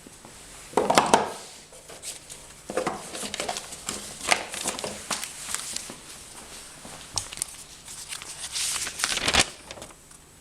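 Packaging being handled, crinkling and rustling in irregular bursts with small clicks and knocks. The loudest bursts come about a second in and again near the end.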